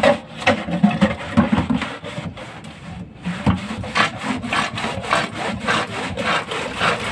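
Homemade PVC hand pump worked up and down, its plunger scraping in the pipe with each stroke as bilge water is pumped out of the boat into a bucket. The strokes are slower and uneven at first, then quick and steady at about three a second.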